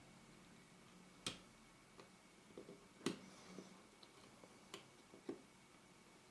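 Small sharp clicks and light taps from handling camera lens parts and small tools, a few a second or so apart against near silence, the loudest about a second in and about three seconds in.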